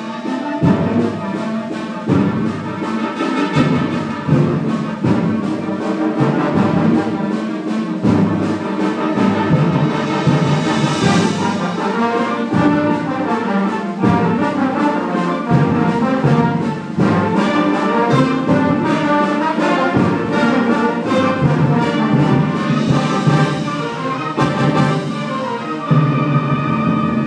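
Student concert band playing live: flutes, clarinets and brass over a steady beat of percussion hits, with two loud swells, one about a third of the way in and one near the end.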